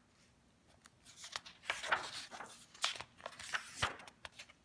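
Paper pages of a coloring book being turned and handled: several rustling swishes with small clicks, starting about a second in.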